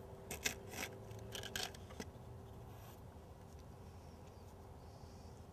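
Loose steel needle roller bearings clinking against one another and a plastic cup as fingers pick a batch out, a few small clicks in the first two seconds.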